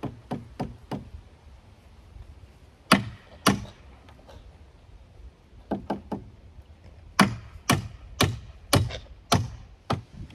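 Hammer blows on a wooden roof truss and framing: a few quick light taps, two hard blows about three seconds in, then a steady run of about seven strikes, roughly two a second, near the end.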